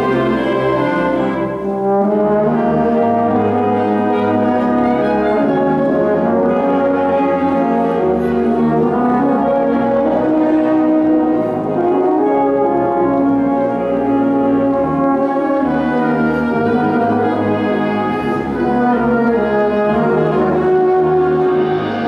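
Euphonium playing a lyrical solo line over a wind band accompaniment.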